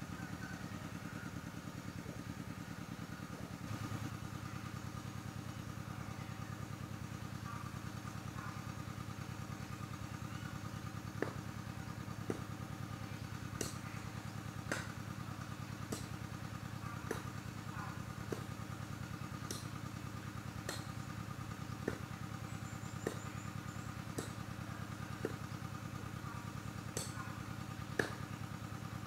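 A small engine idling steadily with a low, even drone. From about a third of the way in, sharp ticks come roughly once a second.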